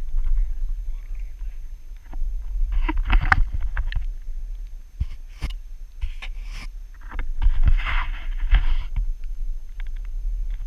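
Water splashing around a kayak in two spells, about three and eight seconds in, over a steady low rumble, with a few sharp knocks between them.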